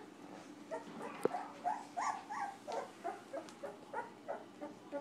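Two-week-old English cream golden retriever puppies calling: a run of short, squeaky high-pitched cries, two or three a second, with a single sharp click about a second in.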